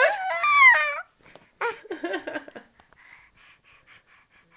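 Baby laughing: a high-pitched squealing laugh for about a second, then quieter, breathy, wheezing laughs that fade away.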